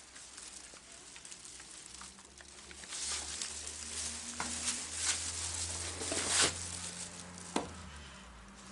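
Scratchy rustling in bursts, with a few sharp clicks and a low rumble underneath. It is loudest in the middle of the stretch.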